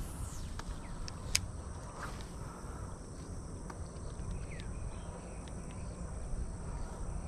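Outdoor pond-side ambience: steady high-pitched insect buzzing over a low rumble, with a few sharp clicks in the first couple of seconds.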